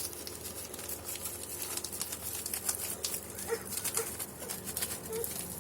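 Ground pepper being shaken out onto raw chicken: a rapid, fine crackling rustle, with a few short, faint squeaks in the second half.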